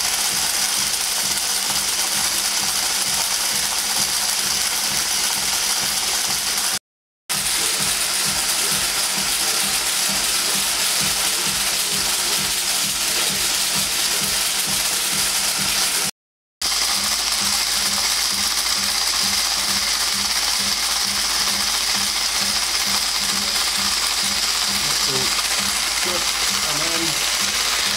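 Stepper-motor airsoft BB feeder running: a steady, fast clatter of the feed mechanism turning and plastic BBs rattling through the hose. It cuts out briefly twice.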